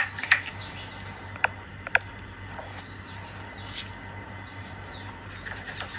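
Light clicks and taps of silicone baking cups being handled and set down on the counter as butter is brushed into them, with several faint high squeaks.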